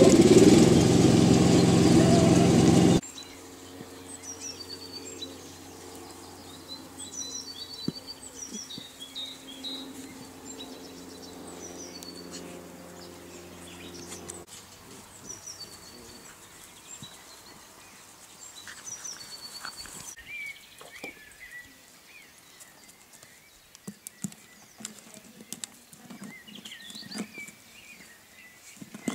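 Small birds chirping repeatedly in the background, with scattered light clicks and scuffles later on. A much louder sound cuts off abruptly about three seconds in.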